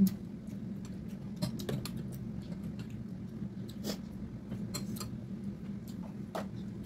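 Eating sounds: two people chewing rice and pork trotters and working the food by hand, with scattered short mouth clicks and smacks. A sharp click right at the start, over a steady low hum.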